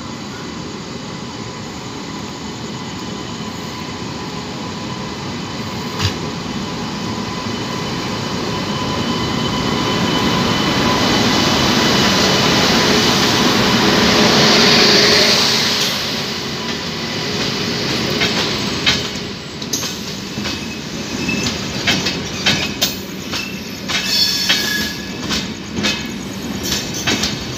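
WAP-7 electric locomotive pulling an express out of a station, growing steadily louder as it draws level and passes. The passenger coaches follow, their wheels clicking irregularly over the rail joints.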